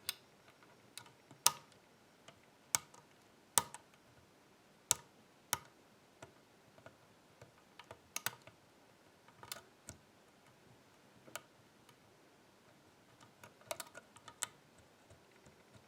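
Sharp, irregular metal clicks from a dimple-lock pick working the spool pins of an AGB dimple euro-cylinder under tension, spaced about a second or more apart with a quick cluster near the end.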